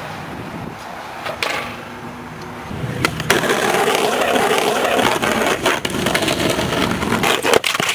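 Skateboard on concrete: wheels rolling and the board scraping, with sharp clacks of the board hitting the ground. Louder from about three seconds in, with several hard clacks near the end.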